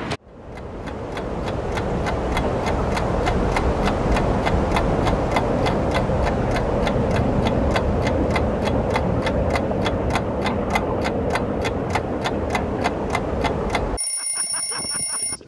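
A clock ticking fast and evenly, about five ticks a second over a steady hiss, fading in at the start. It cuts off abruptly about a second and a half before the end.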